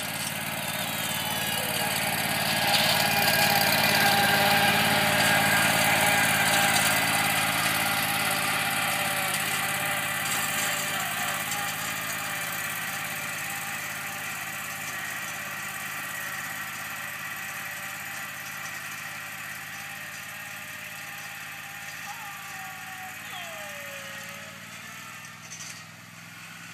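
Zero-turn riding mower's engine running steadily as it drives past, loudest a few seconds in, then fading as the mower drives away.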